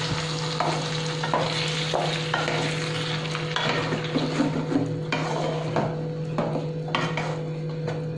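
Cauliflower and tomato purée frying with a sizzle in a non-stick kadai while a slotted spatula stirs and scrapes through it. The spatula knocks against the pan in short strokes, a little under two a second.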